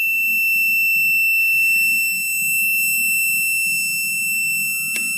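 Digital satellite finder meter's buzzer sounding one steady, high-pitched tone, its alert that a satellite signal is being received. A sharp click comes right at the end.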